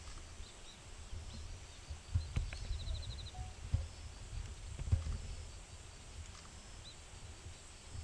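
Outdoor ambience: a fluctuating low rumble with faint small-bird chirps, including a short rapid trill about three seconds in, and a few soft knocks.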